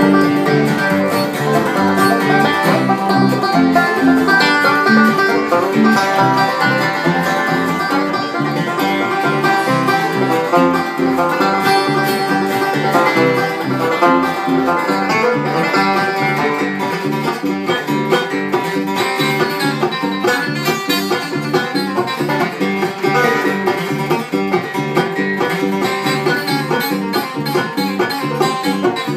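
Bluegrass string band playing an instrumental tune, with banjo picking over guitar.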